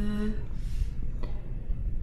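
A woman's voice holding a steady, hum-like voiced 'th' sound that stops about a third of a second in, followed by a soft breath and then low steady background noise.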